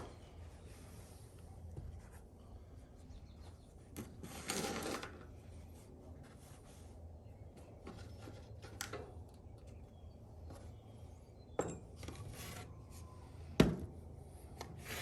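Tools and parts being handled on a workbench during a motorcycle shock teardown: scattered clicks and knocks, with a short rustle about four and a half seconds in and a sharper knock near the end, over a low steady hum.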